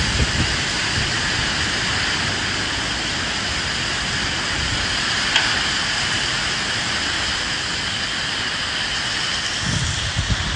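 Steady rain falling with wind, a dense even hiss. Low rumbles come right at the start and again near the end, and a single sharp tick of a drop sounds about five seconds in.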